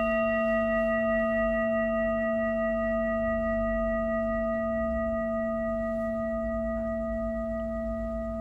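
A singing bowl ringing on after being struck: a steady low hum with several higher overtones, slowly fading. It is offered as a listening remedy meant to lighten the head and make ringing in the ears go away.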